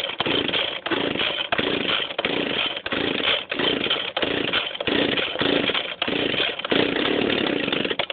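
Cold start of an Echo PB-1000 two-stroke handheld leaf blower, about 30 years old and unused for a month: the recoil starter is pulled over and over, about one and a half pulls a second, and the engine cranks without settling into a run.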